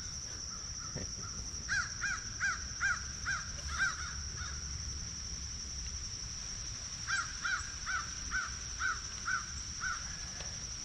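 A bird calling in two runs of short, evenly repeated calls, about three a second, the first starting about two seconds in and the second about seven seconds in, over a steady high-pitched drone.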